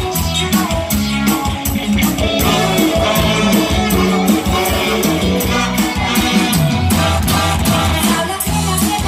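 Live Isan mor lam band music in the rot hae style: a fast, steady drum beat with bass and electric guitar under a singer's voice.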